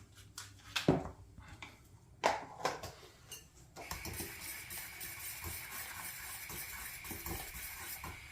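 A metal utensil knocks and clinks against the porridge pot a few times, then about four seconds in a steady hiss sets in as the milk porridge boils on the gas stove.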